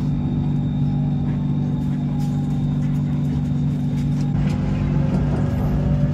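Steady low hum and rumble of a moving vehicle. A faint tone falls slowly over the first couple of seconds, and another rises slowly near the end.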